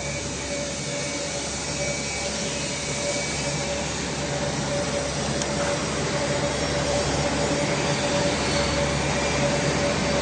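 Steady machinery drone in a workshop, a constant hum with one held tone above it, slowly getting a little louder.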